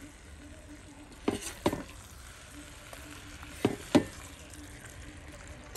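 Metal spoon stirring thick fish chukka in a brass pot, scraping and knocking against the pot twice about a second and a half in and twice near four seconds, the last knock the loudest, over a faint steady sizzle of the curry cooking.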